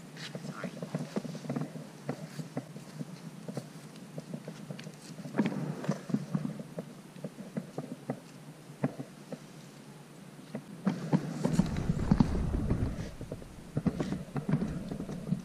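Small taps and scuffs of Airedale Terrier puppies' paws and claws pattering on stone patio pavers close to the microphone, with a louder low rumble for a couple of seconds about three-quarters of the way through.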